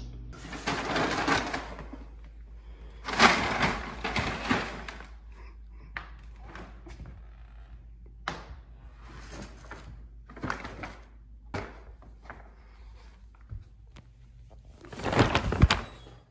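A brown paper shopping bag rustling and crinkling in irregular bursts as a cat moves around in it, with the loudest rustles about a second in, around three to five seconds in, and just before the end.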